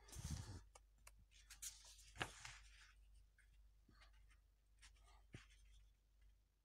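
Faint rustling and light clicks of a paperback comic book's paper pages being turned and riffled, with a louder rustle and handling bump right at the start.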